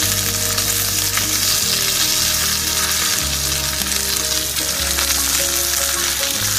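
Beef sirloin steak searing in butter in a hot cast-iron Dutch-oven pan, giving a steady, loud sizzle with spattering fat.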